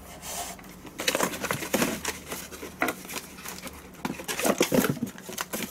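Handling noise from plastic battery chargers and their power cords being moved about on a wooden floor: irregular rustles, scrapes and light knocks, bunched about a second in and again about four seconds in.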